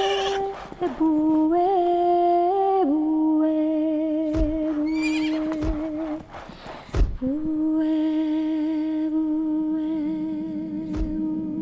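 Long held notes of a humming voice, each slowly wavering and changing pitch every few seconds, with a horse whinnying about five seconds in. A few low thumps sound along the way.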